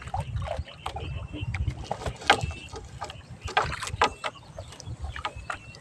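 Wet monofilament gill net being hauled hand over hand over the side of a wooden outrigger boat: scattered clicks, drips and small splashes from the net and water, over a steady low rumble.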